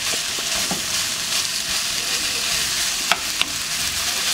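Raw crumbled Argentine chorizo sizzling in hot oil with green onions in a nonstick pan, stirred with a wooden spoon: a steady high sizzle, with a couple of sharp clicks a little after three seconds in.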